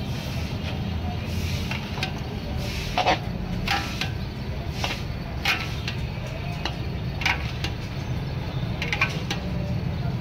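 A metal perforated ladle clinks and scrapes against a large steel karahi as boondi is mixed with sugar syrup, giving about half a dozen sharp clinks at uneven intervals. A steady low rumble sits beneath them.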